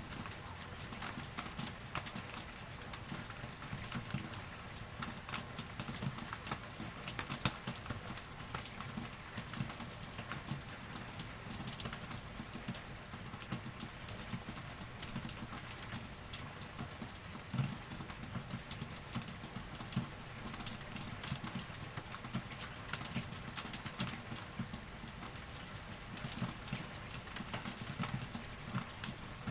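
Rain falling: a dense, irregular run of individual drops tapping close to the microphone over a steady hiss, with a few louder taps now and then.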